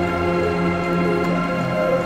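Background music: soft sustained chords over a pulsing bass.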